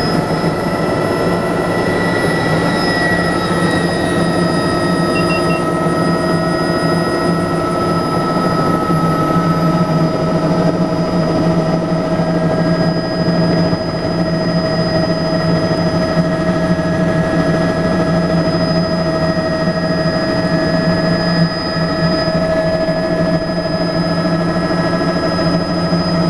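Bell 206B-III JetRanger III helicopter heard from inside the cabin: its turbine whine and rotor drone run steadily as it lifts off the helipad.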